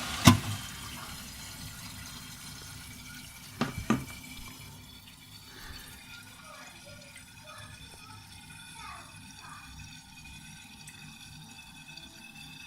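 Concealed Geberit in-wall toilet cistern quietly refilling with water after a flush, with a sharp click just after the start and two quick knocks about four seconds in.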